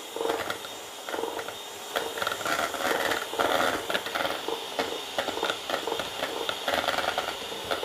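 Electric hand mixer running at steady speed, its twin beaters whipping egg whites and the first portion of sugar into meringue, with a constant motor hum and scattered clicks.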